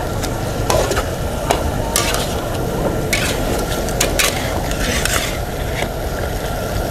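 Garlic sauce sizzling in a wok of fried chicken drumsticks, with a metal spatula scraping the pan again and again as sauce is scooped up and spooned over the chicken.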